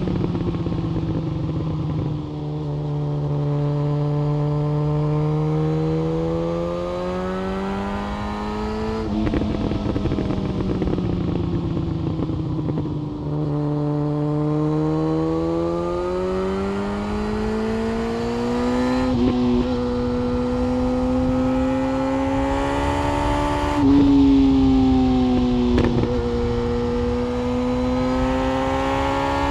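Yamaha FZ1 Fazer inline-four engine through an SC-Project aftermarket exhaust, under way. The engine note climbs steadily under acceleration and drops or steps at gear changes, several times over.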